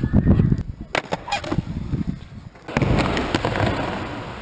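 Skateboard crash sounds: the board knocking and clattering on the ground, then a steady rush of skateboard wheels rolling that fades away near the end.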